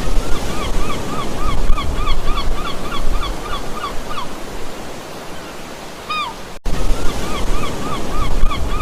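An animal calling in a rapid series of short, chirping notes, about three a second, ending in one longer falling call, over a loud, steady rushing noise. After a brief break the same series of chirps starts again.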